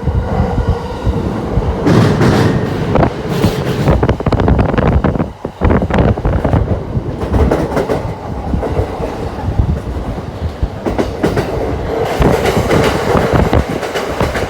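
N700S Shinkansen train running on the track, its wheels making a dense, rapid clatter over a loud steady rumble.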